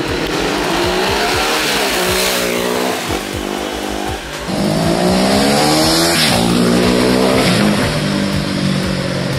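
Ducati Hyperstrada 821's 821 cc twin-cylinder engine revving hard as the bike rides past, its pitch rising and falling several times. A second, louder pass starts about halfway through.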